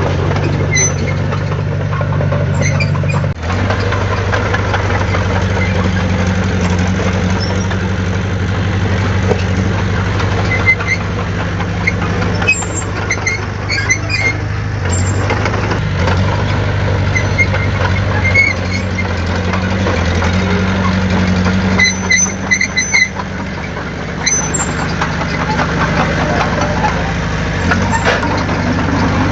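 Heavy diesel engine of earthmoving machinery running steadily, with short high squeaks and clinks now and then.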